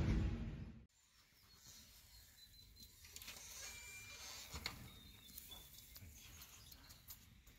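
A low rumble cuts off abruptly about a second in. After it comes faint outdoor ambience with a few brief bird chirps and light scattered clicks and rustles.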